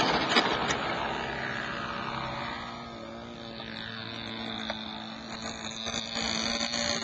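Electric motor and propeller of a 55-inch RC scale Fokker D.VIII model running at high power on its take-off run and climb-out. It is loudest as the plane passes close about half a second in, and a high whine comes through from about halfway on as it climbs away.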